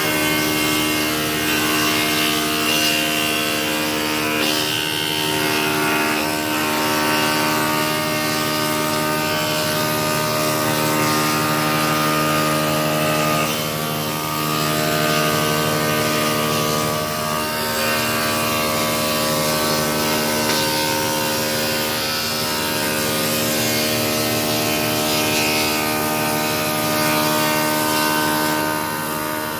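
Spindle moulder (wood shaper) running steadily, a constant hum made up of several steady tones, while a wooden board is fed by hand along its fence past the cutter.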